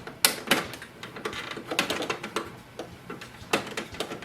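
Irregular plastic clicks and knocks from a Phillips screwdriver turning out the screw on the back plate of an HP DeskJet 4100 printer while the printer is handled.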